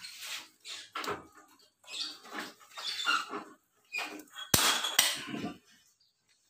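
Long socket wrench and steel socket working a bolt on a Mitsubishi L300 diesel engine: short metallic clicks and scrapes in an uneven run, with one sharp metal clack about four and a half seconds in.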